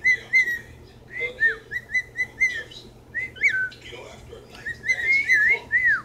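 Cockatiel whistling its song: a string of short whistled notes, several ending in a quick downward slide, in three bursts with brief pauses between.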